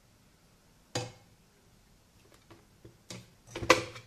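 Several separate knocks and clatters of kitchen things being handled at a plastic countertop blender, one about a second in and a louder clatter near the end, with a few light ticks between.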